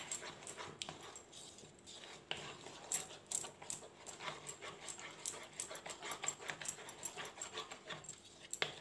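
Silicone spatula stirring a thick yogurt marinade in a plastic bowl: faint, irregular wet scrapes and soft clicks, several a second.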